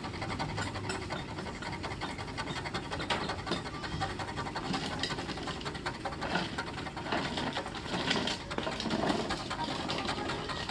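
A flat, hard, blunt strip scraping hardened mango-tree sap off a car's painted body panel: a fine, scratchy rasping that swells and fades in short strokes.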